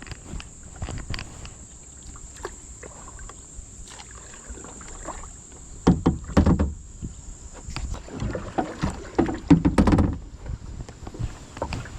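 Kayak on the water being paddled: water splashes and knocks of the paddle and gear against the plastic hull, with two louder clusters of bumps, one about halfway through and one shortly before the end.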